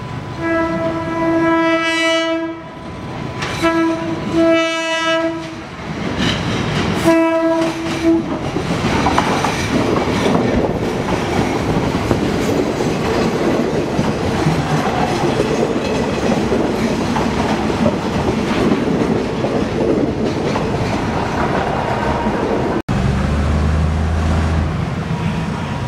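Diesel railcar sounding its horn in four blasts, the first about two seconds long and the others shorter, as it approaches. The railcar then passes close by with a loud rumble and clatter of wheels on the rails. Near the end the diesel engine hums low and steady.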